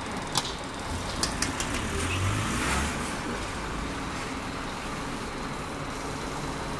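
The diesel engine of a Scania K400 coach running close by, a steady low rumble that swells briefly about two seconds in, with street traffic around it. A few light clicks come in the first two seconds.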